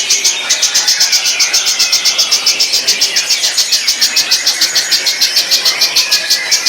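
White-rumped shama (murai batu) giving a rapid, even rattling call of about eight sharp notes a second, with softer chirping underneath.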